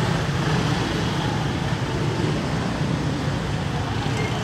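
Steady street din of motor scooters running through a crowded market lane, with a continuous low engine hum and no single sound standing out.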